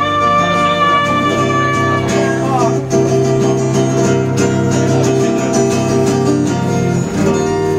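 A woman singing with her own acoustic guitar, played live. A high held tone stops with a short downward slide about two seconds in, and the guitar chords carry on.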